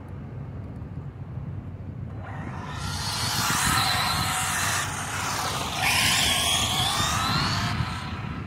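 Arrma Limitless brushless electric RC car running on asphalt: its high-pitched motor whine and tyre hiss build up about two seconds in. The whine comes in two surges with a brief dip between them and shifts in pitch as the car speeds up and backs off, then fades near the end.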